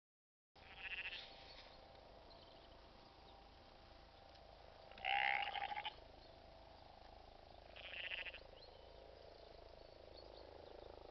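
Castlemilk Moorit sheep bleating three times with a quavering call, the middle bleat the loudest and longest.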